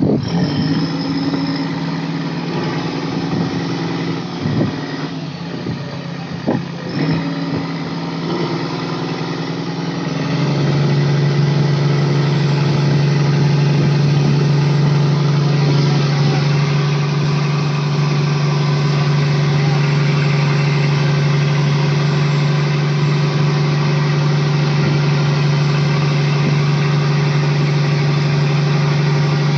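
Fishing boat's engine running steadily. About a third of the way in it grows louder and its pitch settles slightly lower, with a few knocks before that.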